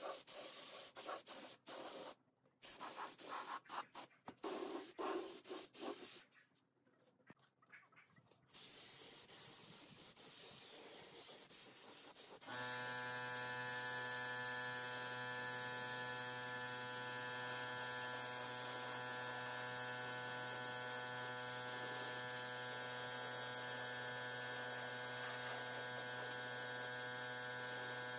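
Gravity-cup air spray gun hissing in on-off bursts as finish is sprayed onto the wooden seat. About halfway, a steady electrical hum with many even overtones starts and holds.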